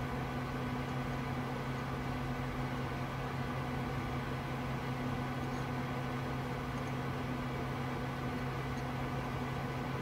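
Steady hum and hiss of a running desktop computer, its fans and power supply turning over evenly with no change.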